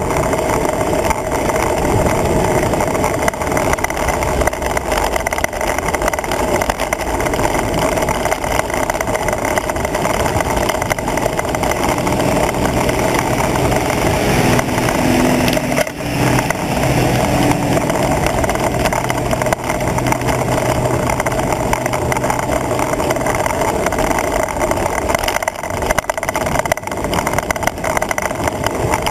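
Steady wind rush and road noise on the microphone of a camera mounted on a moving road bike's handlebars. A low hum comes in about twelve seconds in and fades out near twenty-three seconds.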